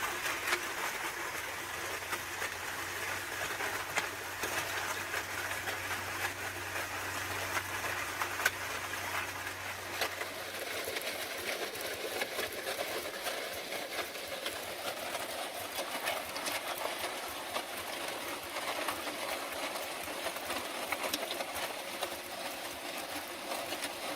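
Drill-driven portable concrete mixer churning a batch of bagged concrete mix: a steady motor hum under a continuous gritty rattling and scraping of the wet aggregate. The motor hum stops about ten seconds in, while the gritty scraping of concrete carries on.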